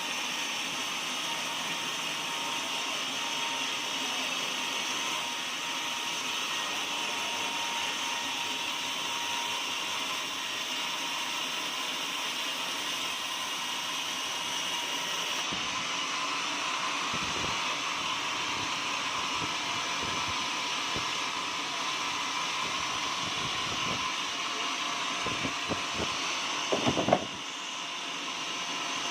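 Portable sawmill running steadily as it saws an oak log, a constant mechanical hum and whine. Near the end come several knocks of wood, one sharp and loud, after which the running sound drops a little.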